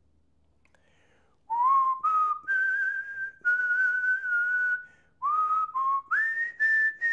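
A man whistling a tune: single clear notes, held and stepping up and down in pitch in short phrases, with breath audible around them, starting about a second and a half in.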